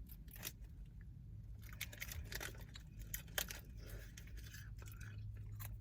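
Faint crunching and crackling from someone eating a crisp snack: scattered short clicks and crunches over a steady low hum.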